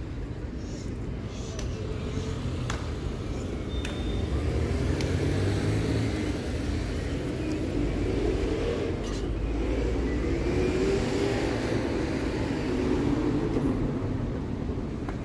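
Street traffic: engines and tyres of passing cars, swelling louder about four seconds in and staying up for most of the rest.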